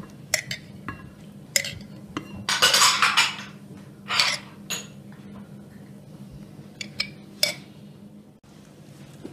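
Metal teaspoon clinking and scraping against a glass jar and a cut-glass dessert bowl as jam is spooned out: scattered sharp clinks, with a longer, louder scrape about three seconds in.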